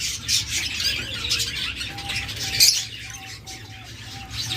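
Many caged pet birds chirping and twittering at once, a mix of high chirps with one louder chirp about halfway through, and a run of short repeated mid-pitched notes in the second half.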